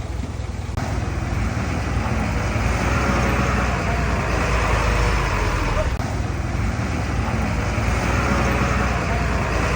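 Heavy diesel engine of earthmoving machinery running steadily, growing louder about a second in.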